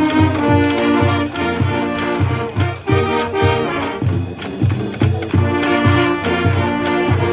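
High school marching band playing: brass instruments sound held chords and a melody over a steady, even drum beat.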